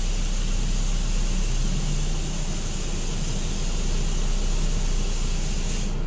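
Water spraying from a Belanger FreeStyler tunnel car wash's nozzles, a steady hiss that cuts off suddenly near the end, over a steady low hum.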